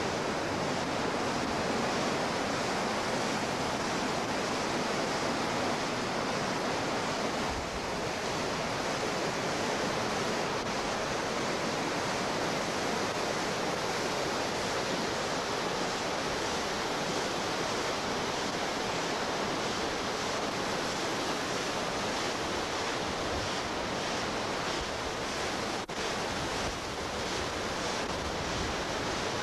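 Steady rushing roar of whitewater rapids, an even noise with no change throughout.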